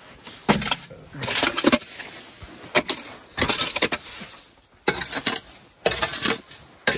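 Metal shovel scraping and chopping into packed snow, in a series of sharp, irregular strokes about a second apart.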